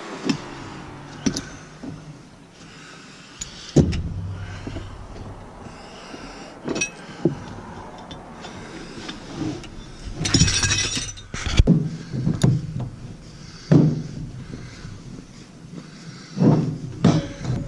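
Irregular metallic clanks, knocks and clinks of tools and metal hardware being handled, with a brief jingling rattle about ten seconds in and a quick run of knocks near the end.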